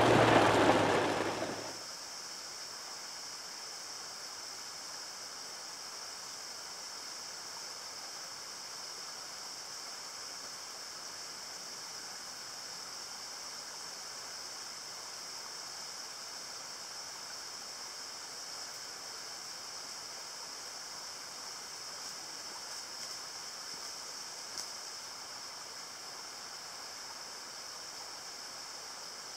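Steady rushing hiss of a mountain creek running high after a day of rain. Music fades out in the first two seconds.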